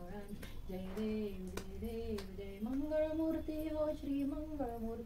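A woman singing a devotional aarti hymn in long, drawn-out notes during a lamp-waving puja.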